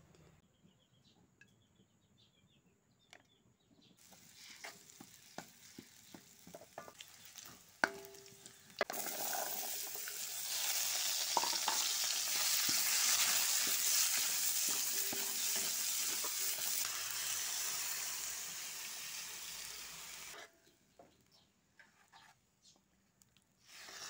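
Diced carrots sizzling in hot oil in a wok while a spatula stirs them. The sizzle starts suddenly about nine seconds in, is loudest soon after, then fades and stops abruptly about twenty seconds in. Scattered light clicks and knocks come before and after it.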